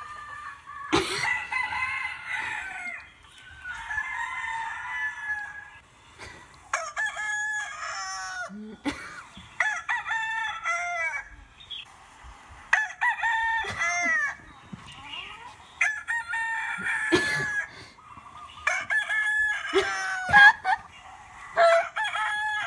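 Recorded rooster crowing and clucking played from an iPhone's speaker: a run of repeated calls, broken by a few sharp knocks.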